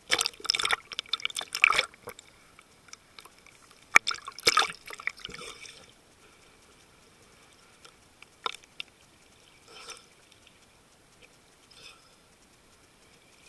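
Sea water splashing and lapping against a camera held at the waterline, in irregular bursts: heaviest in the first two seconds and again around four to five seconds in, then only a few small splashes.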